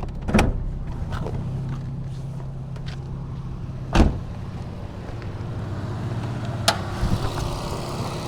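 Nissan 350Z's 3.5-litre V6 idling steadily with its electric radiator cooling fans running, the fans switched on to cool the engine. A few sharp knocks sound over it, the loudest about four seconds in, and a broader rushing noise comes up about seven seconds in.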